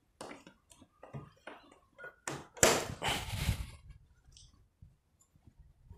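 Packaging and parts being handled while unboxing a moving-head beam light: a run of short rustles and light knocks, loudest in a longer rustle from about two and a half to three and a half seconds in.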